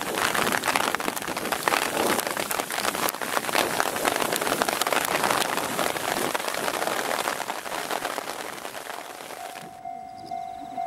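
Heavy downpour of rain, a dense loud hiss with many sharp drop hits close to the microphone. About a second before the end it cuts off abruptly, replaced by a much quieter steady tone that pulses at a regular rate.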